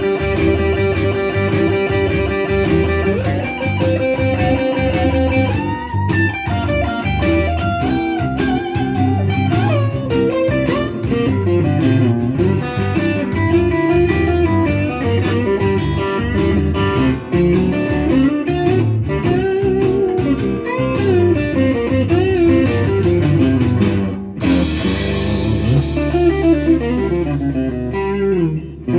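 Blues shuffle played on electric guitar over a drum and bass backing, with bent lead notes. About 24 seconds in the band stops on a final chord that rings out with a cymbal wash and fades.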